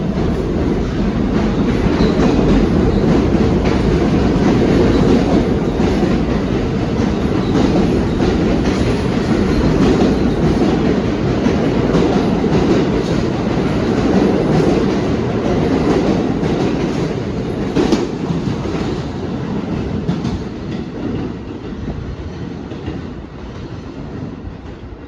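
New York City subway train running through the station with a steady rumble and wheels clacking over the rail joints, with a sharp click about two-thirds of the way through. The sound fades over the last several seconds.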